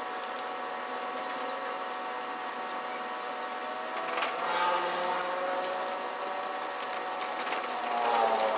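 A cut transfer sheet being peeled and crumpled by hand, giving scattered crackles and rustles that are busiest about halfway through and near the end. Behind it runs a steady background of several tones that slide in pitch now and then.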